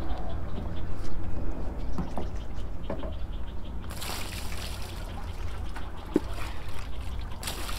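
Water poured from a plastic bucket splashing onto a Mekong giant catfish lying on a foam unhooking mat, setting in about four seconds in and again near the end.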